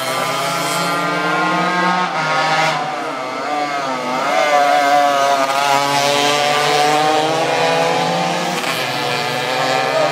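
Two racing Tomos mopeds' small two-stroke engines revving hard as they pass close by. The high engine notes dip and then climb again about four seconds in, then hold high as they accelerate away.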